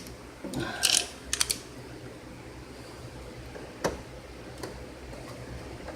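A few sharp clicks and knocks from tools and parts being handled during work on an HVAC unit's wiring: a quick cluster in the first second and a half, then two single clicks later, over a faint steady hum.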